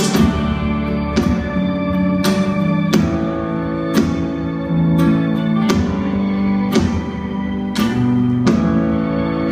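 Live rock band playing an instrumental passage: strummed acoustic and electric guitars, bass and drums, with a drum hit about once a second.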